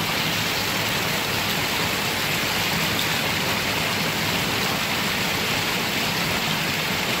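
Spring water pouring steadily from a spout in a stone wall and splashing, with a plastic bottle being filled under the stream.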